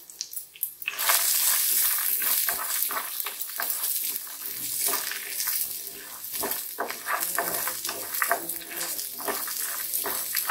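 Ingredients frying in hot cooking oil in a frying pan: a loud sizzle full of fine crackles that starts suddenly about a second in and keeps going.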